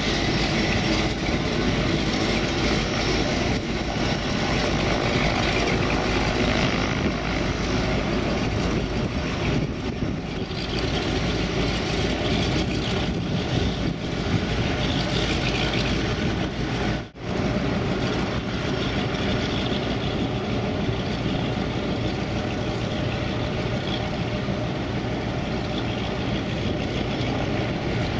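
de Havilland Canada DHC-6 Twin Otter's twin Pratt & Whitney PT6A turboprops running steadily with propeller drone as the floatplane taxis on the water. A sharp, very brief break in the sound comes about two-thirds of the way through.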